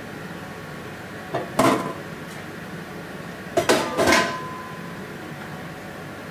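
Dishes and kitchenware clattering: a couple of knocks about a second and a half in, then a cluster of clinks around four seconds, the last one ringing briefly, over a steady background hiss.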